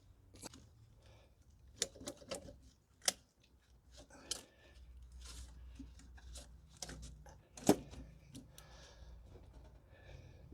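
Irregular clicks, taps and clunks of hand tools and parts being handled in an engine bay during intake removal, with a sharp knock about three seconds in and the loudest knock near the end.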